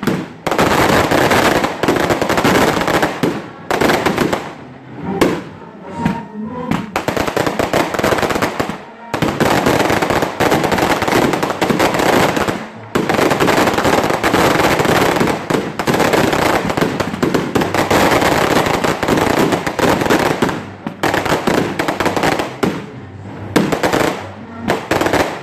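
Aerial fireworks bursting in a dense barrage: long runs of rapid bangs and crackles, broken by a few brief lulls.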